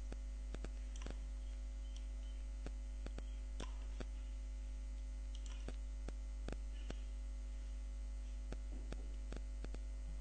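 Steady electrical mains hum, with a dozen or so sharp, irregular computer mouse clicks over it while a rectangle is drawn and selected.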